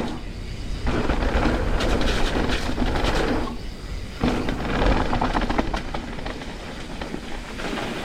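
Mountain bike descending a rough trail: a steady rumble of tyres on the ground, with the chain and frame clattering over bumps.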